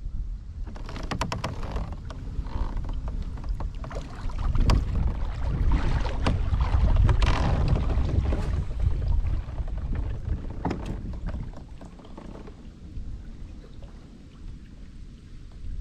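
Wind buffeting the microphone over water lapping against a fishing kayak's hull, loudest through the middle and easing off near the end. A quick run of clicks comes about a second in, with a few single clicks later.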